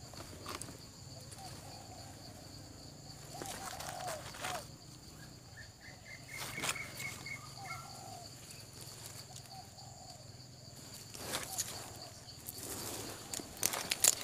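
Forest ambience: a steady high-pitched insect drone throughout, a bird giving a short run of repeated notes about midway, and scattered rustles and crunches of footsteps in leaf litter.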